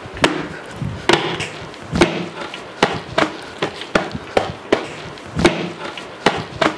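Small hand drum struck by hand in sharp, uneven beats, roughly two a second.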